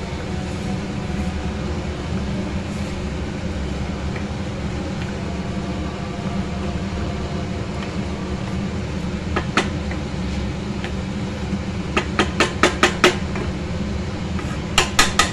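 Wooden spatula stirring rice in a wok, knocking against the pan: one tap a little after halfway, a quick run of about six taps later on, and a few more near the end, over a steady low hum.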